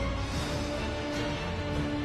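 Background music with steady held notes and a light beat.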